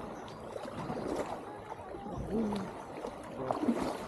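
Kayak paddling on calm water: paddle blades dipping and water splashing and trickling around the hull.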